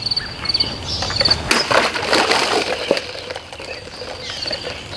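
A Wusthof Silverpoint chef's knife slashes through a row of full plastic water bottles about a second and a half in, followed for about a second and a half by splashing water and falling cut pieces, with another knock near the three-second mark. Crickets chirp steadily in the background.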